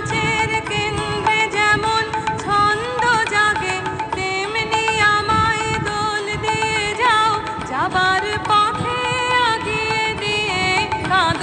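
Background music: a passage of a Bengali song without sung words, a melodic instrument playing sustained, gliding notes over light percussion.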